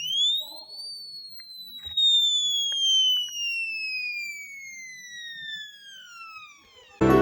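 Electronic siren sounding one wail: the pitch rises quickly for under a second, then falls slowly for about six seconds and cuts off suddenly.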